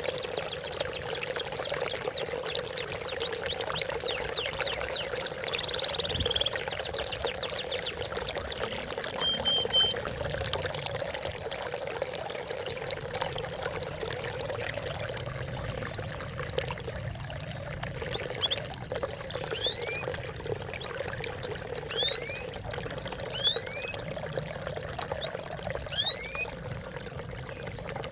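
Water trickling and splashing steadily, with small birds chirping over it. For about the first ten seconds there are fast runs of high, falling chirps; after that come scattered single chirps.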